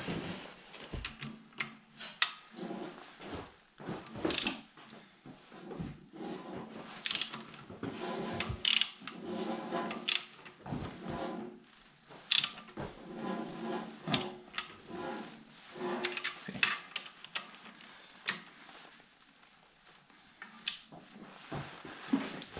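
Hand tools working on the bolts that hold a tractor clutch to its flywheel: a socket wrench turning and metal tools clinking, heard as irregular clicks and clanks with short quiet gaps.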